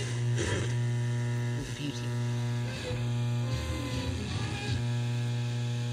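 A 1962 Telefunken Concertino valve table radio playing through its loudspeaker as it is tuned: a steady mains hum with faint, broken broadcast voices and a few short gliding whistles.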